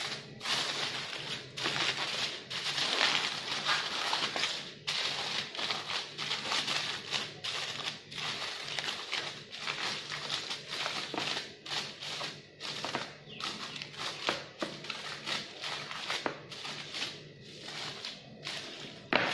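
Aluminium foil crinkling and crackling as it is folded and pressed by hand around a glass dish, an irregular rustle that is loudest in the first few seconds.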